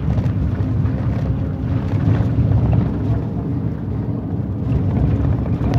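Steady low rumble of a car driving along a road at speed, with wind buffeting the microphone.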